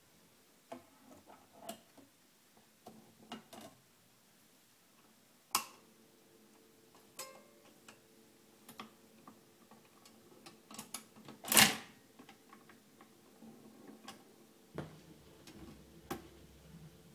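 Vintage BSR record changer being loaded and started: small clicks and knocks as a 45 is fitted on the spindle, then the motor starts with a steady hum and the purely mechanical changer cycles with a string of clicks. A loud clack about midway is the record dropping onto the platter. Near the end the tonearm sets down with a thump, followed by a low rumble.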